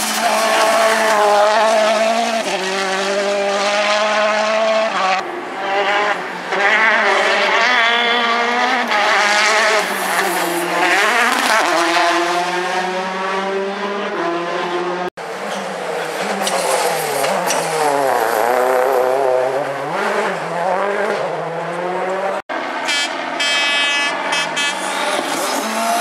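Turbocharged four-cylinder R5 rally cars at full throttle, one after another, first a Citroën DS3 R5, and near the end a Ford Fiesta R5. The engine note climbs and drops sharply through quick gear changes. Near the end there is a rapid run of sharp cracks.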